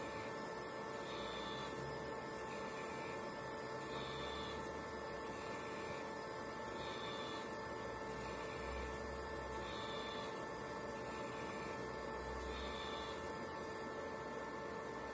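Stepper motors of a 3D-printed pick-and-place machine running a repeating move cycle, a pattern that comes round about every two seconds over a steady electrical hum.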